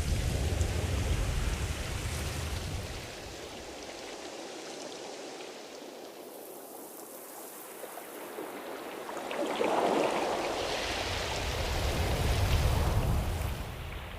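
Ocean surf: waves washing in and drawing back as a steady rushing noise. One surge fades after the first few seconds, and another builds about nine seconds in and dies away near the end.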